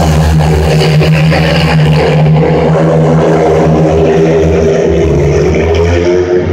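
Several speedway motorcycles, 500 cc single-cylinder methanol engines, racing at full throttle around the dirt oval: a loud, dense engine note whose pitch rises and falls gently as the riders go through the bend and down the straight.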